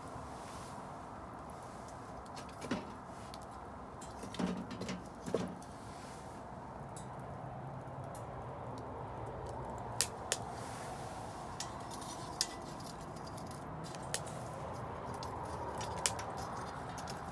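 Wood bonfire burning: a steady rush of flame with scattered sharp pops and snaps from the burning wood, and a few duller knocks in the first half.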